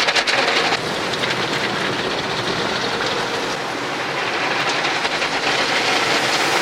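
Automatic car wash working over the car, heard from inside the cabin: a steady, loud wash of spraying water and machinery noise that eases slightly about a second in.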